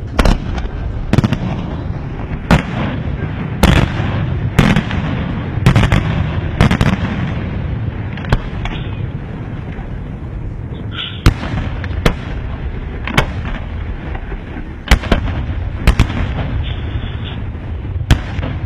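Aerial firework shells bursting in a steady sequence, about one sharp bang a second, over a continuous low rumble that is heaviest in the first seven seconds or so.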